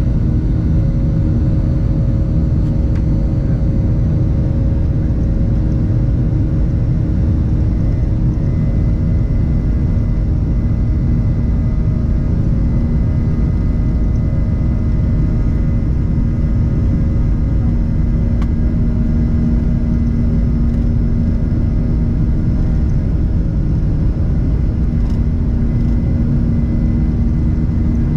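Airliner engines at take-off power heard from inside the cabin: a loud, steady rumble with several steady hum tones over it, through the take-off roll and climb-out. One low hum grows stronger past the middle.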